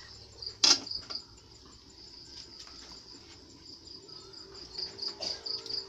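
Crickets chirping in a steady, pulsing high trill, with one sharp knock about a second in.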